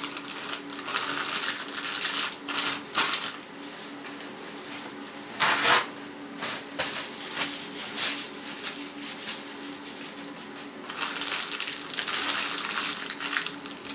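Plastic ham-maker bag crinkling and rustling as minced meat is pressed down into it inside a stainless steel ham press. The rustling comes in bursts over the first few seconds, once briefly about halfway, and again near the end, over a faint steady hum.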